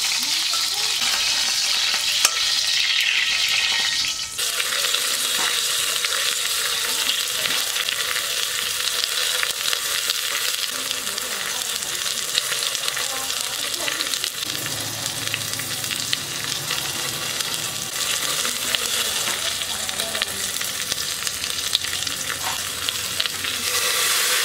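Pork ribs sizzling in hot oil, a steady crackling sizzle broken by small clicks of metal tongs and spoon against the aluminium pressure-cooker pot. Near the end, water poured into the hot pot makes the hiss louder.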